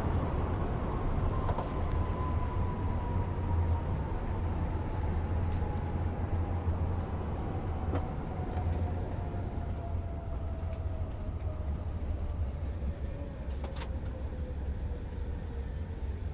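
Airbus A380 cabin noise while the airliner rolls out and slows after landing: a steady low rumble with a thin whine that falls slowly in pitch throughout as the engines wind down.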